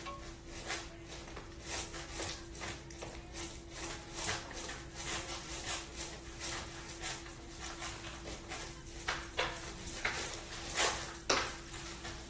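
A hand slapping and squelching through soft puff puff batter in a bowl, a steady beat of about two to three strokes a second, with a few louder slaps near the end. A faint steady hum runs underneath.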